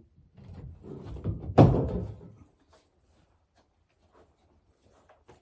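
A wall vent grille being pulled out and handled: scraping and rattling for about two seconds, with one sharp knock about a second and a half in.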